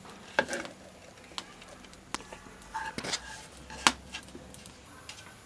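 A terracotta bowl knocking and scraping against a cooking pot as diced mango and spices are tipped in: about six sharp knocks and clatters, the loudest near the end.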